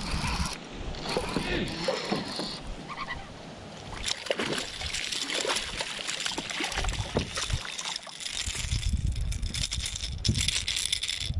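A small hooked chain pickerel splashing at the water's surface as it is reeled in to the boat on a jerkbait, with bouts of low rumbling noise.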